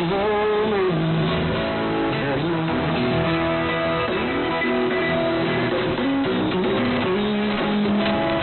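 Guitar-led music heard over a shortwave AM radio broadcast, with no highs above about 4 kHz, so it sounds narrow and muffled.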